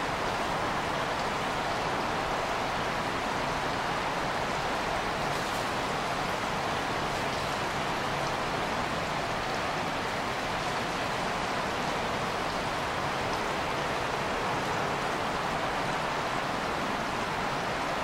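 Steady rushing of flowing creek water, an even hiss with no breaks.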